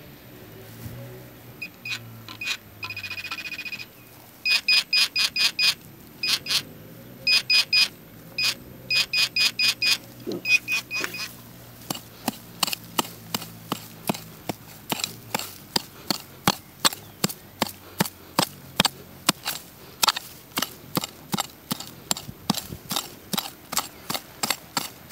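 Metal detector sounding short, high-pitched beeps in quick bursts as it is swept over a target, with one longer held tone about three seconds in. In the second half the beeps give way to a steady run of sharp clicks, about two to three a second.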